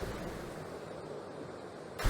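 Faint storm noise, wind rushing on the microphone, dying away to a low hiss.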